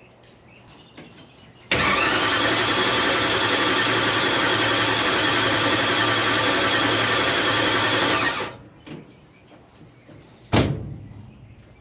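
Hot rod engine being cranked over by its starter motor for about seven seconds without catching, then cut off; the engine still won't run. A single sharp knock follows near the end.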